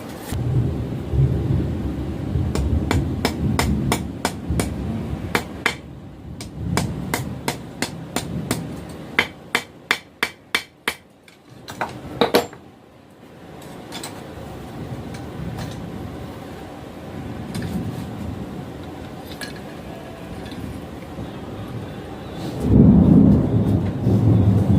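Hand hammer striking hot steel on an anvil in a run of blows, forging a knife blade, quickening to about three blows a second before stopping, with one more heavy blow a moment later. Thunder rumbles underneath and swells loudly near the end.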